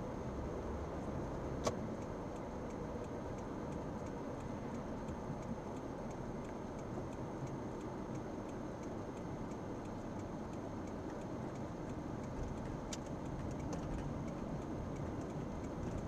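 Steady road and engine noise of a 2010 Toyota Camry LE with its 2.5-litre inline-four, heard while driving, with one sharp click near two seconds in.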